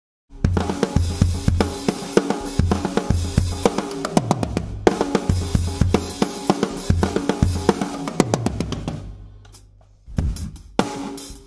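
Drum kit with an acrylic bass drum, picked up by a Yamaha EAD10, played as a busy pattern of bass drum, snare and cymbals. It starts after a moment of silence, dies away for about a second and a half near the end, then the hits come back.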